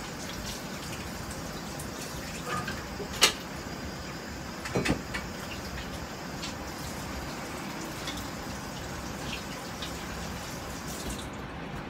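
Kitchen tap running steadily, then turned off near the end, with a sharp click about three seconds in and a few knocks soon after.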